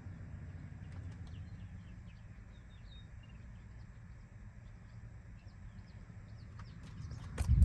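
Small birds chirping faintly in short calls over a low steady rumble, with a few loud knocks near the end.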